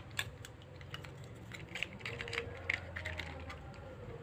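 Scattered light clicks and taps of a plastic toy RC off-road car being handled, at an irregular pace.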